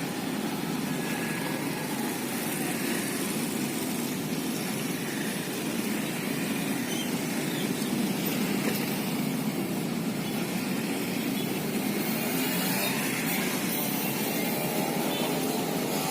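Steady street traffic noise, a low rumble of vehicle engines running and passing, with an engine note rising near the end.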